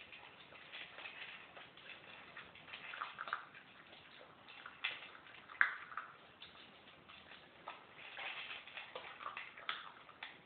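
Two puppies eating dry kibble from a bowl: irregular crunching and clicking of the kibble against the bowl.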